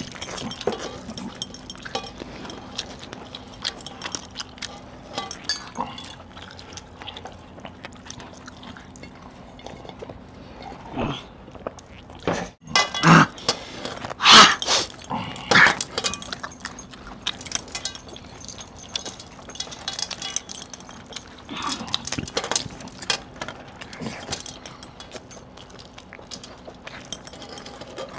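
Close-up eating sounds from chicken curry eaten by hand off steel plates: chewing and smacking, with many small clicks and clinks of metal rings and bracelets against the steel. A few louder sounds come in a cluster in the middle.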